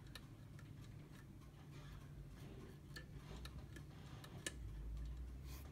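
David Walter double pendulum clock ticking faintly, about two ticks a second, over a low steady hum.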